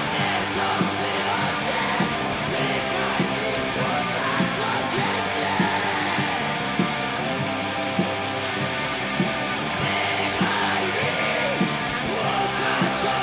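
Band music in an instrumental passage: guitars playing over a steady beat, with a sharp accent about every second and a bit.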